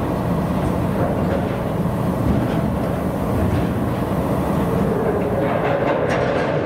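Steady low rumble of a small coastal cargo ship's diesel engine running, heard across the water.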